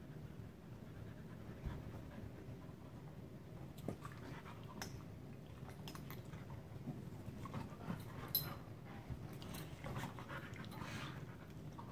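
Dogs panting during rough play, with a few sharp clicks and fabric rustling as they move about on a couch cover.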